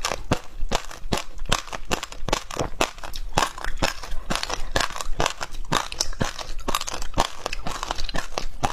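Shaved ice being crunched and chewed close to the microphone: a steady run of crisp crunches, several a second.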